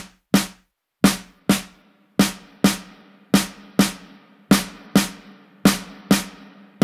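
Snare drum track played back solo: sharp snare hits in pairs about half a second apart, a new pair every second or so. From about two seconds in, each hit carries a longer reverb tail as reverb is dialed in on the snare.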